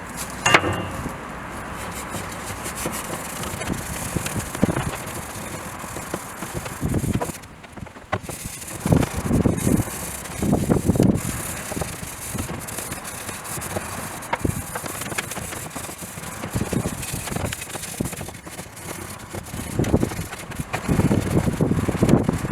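Hand scrubbing of the metal air cleaner housing from the engine of a 1956 Chevy Bel Air, a rasping rub in repeated strokes that clears off its surface rust. The strokes come in bunches, with busier spells about halfway through and near the end.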